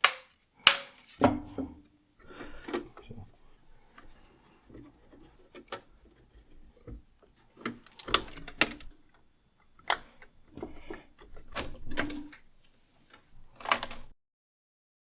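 Irregular clicks, taps and knocks of hard parts being handled and fitted together, with quieter rustling between them; the sound cuts off abruptly about a second before the end.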